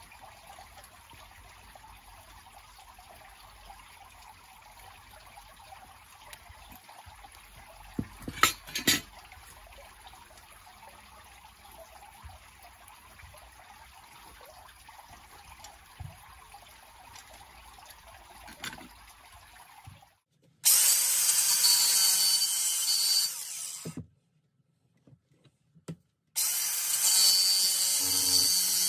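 Angle grinder cutting into an aluminium casting held in a vice, in two runs of about three seconds each with a stop between. Before it, a low steady hiss with two sharp knocks about eight and a half seconds in.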